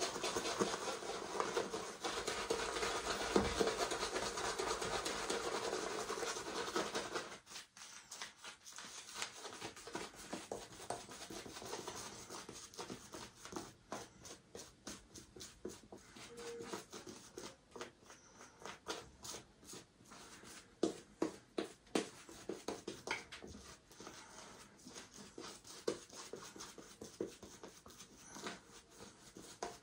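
Soft synthetic shaving brush working shaving soap into a light, airy lather. For the first seven seconds or so it makes a denser, steady wet swishing, then a quieter run of many small irregular clicks.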